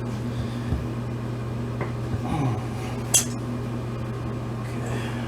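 Metal clinks and knocks from handling the tire on its rim and the air-hose fitting, with one sharp click about three seconds in, over a steady low hum.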